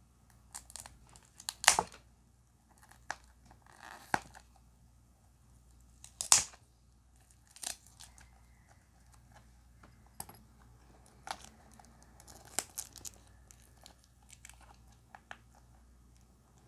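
Cardboard box and plastic insert of a die-cast model car being opened by hand: irregular crinkling, scraping and clicking, with the sharpest crackles about two seconds in and again around six seconds.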